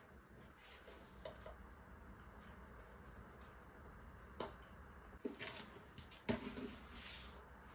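Faint kitchen sounds as ground spices go into a simmering curry: a few light clicks and taps of utensils, the loudest about six seconds in, over a low steady hum.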